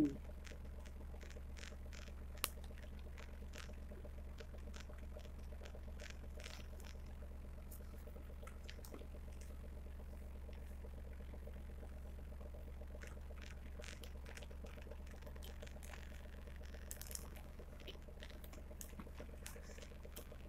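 Faint, irregular crackly clicks of someone chewing dry chunks of tapioca starch, over a steady low hum.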